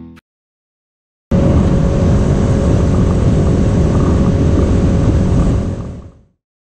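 Small boat's outboard motor running at speed, with wind rushing over the microphone. It starts abruptly about a second in and cuts off near the end.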